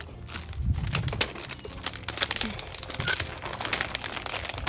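Irregular crunching and crackling of a crust of sleet and ice underfoot.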